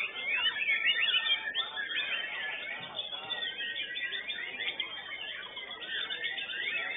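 White-rumped shama (murai batu) singing in a contest cage: a fast, unbroken stream of varied whistles and trills that rise and fall, overlapping one another.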